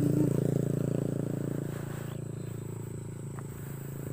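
Small motorcycle engine passing close by and fading as it moves away down the road.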